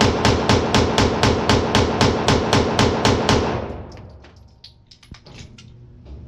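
Glock 19 9mm pistol firing a long string of rapid shots, about five a second, as it empties a 33-round extended magazine without a jam. The shooting stops about three and a half seconds in, leaving only faint clicks.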